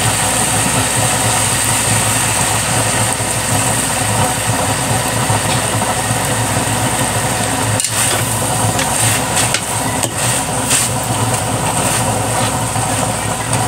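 Chicken pieces sizzling in a large aluminium wok, a steady hiss with a low rumble under it, as soy sauce goes into the hot pan. A metal spatula scrapes and clinks against the wok in a short cluster past the middle.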